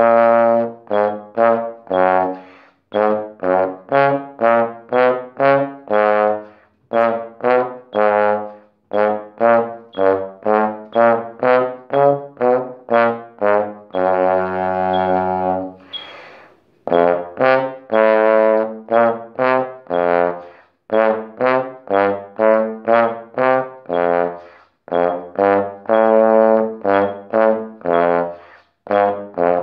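Tenor trombone playing a practice étude: a run of short, separated notes that move in pitch, about two a second, with one longer held note about halfway through.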